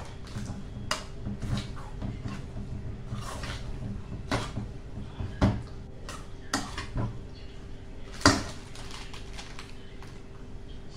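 A metal utensil knocking and scraping against a metal pot while ingredients are mixed by hand, in irregular clinks, the loudest about eight seconds in.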